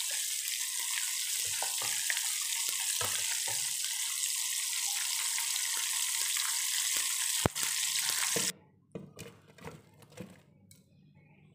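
Hot oil sizzling steadily in a frying pan as chillies, garlic and onion fry, with a metal ladle clicking against the pan. The sizzle cuts off suddenly about eight and a half seconds in, after which there are only faint soft knocks.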